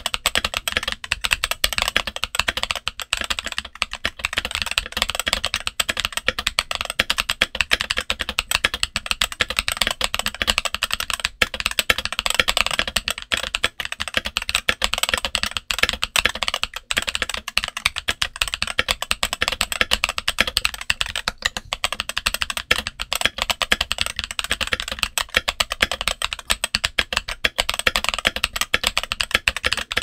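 Steady fast typing on a Redragon K530 mechanical keyboard fitted with MMD Princess tactile switches and OEM-profile double-shot ABS keycaps, dampened with the tempest mod, switch pads and case felt. A dense, unbroken stream of keystroke clacks, several a second.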